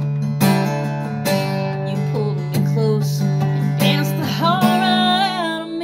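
Acoustic guitar strummed in a slow song, a chord struck about once a second and left to ring. Near the end a sung note is held with vibrato over the ringing chord.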